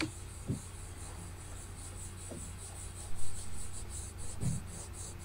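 Cotton swab rubbing over the surface of an oil painting, lifting surface dirt and smoke, with a few soft knocks over a steady low hum.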